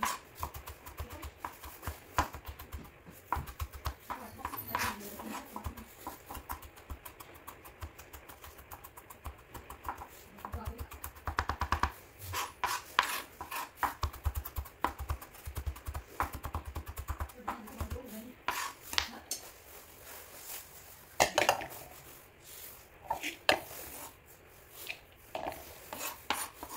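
Chef's knife chopping and mincing on a plastic cutting board: fast runs of knife strikes, with pauses and a few louder knocks as the blade gathers the pieces.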